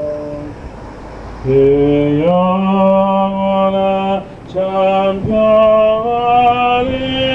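A male voice singing a slow Catholic liturgical chant in long held notes, stepping from pitch to pitch, with a short breath about four seconds in.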